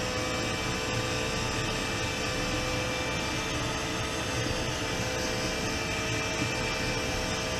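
Hair dryer blowing steadily, drying a fresh coat of pink paint on a crankbait, with the steady hum of an exhaust fan underneath.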